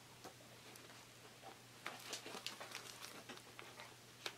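Faint rustling and clicking of a wrapped toy's plastic packaging being handled and cut open with scissors, getting busier about two seconds in.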